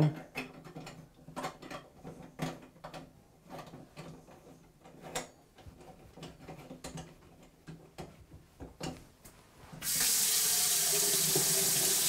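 Small sharp clicks and scrapes as a faucet aerator is handled and screwed back onto a bathroom faucet spout. Near the end the tap is turned on and water runs steadily from the spout into the sink.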